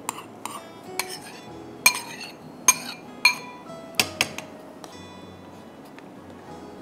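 A metal spoon clinking against cookware, about eight sharp ringing taps over the first five seconds, as rice is worked into a pot of milk. Soft background music runs underneath.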